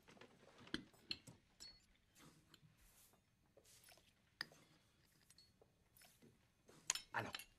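Faint tableware and eating sounds: a fork clicking and tapping on a plate as a piece of apple strudel with cream is cut and eaten, with soft chewing between the clicks. A small cluster of louder clicks comes near the end.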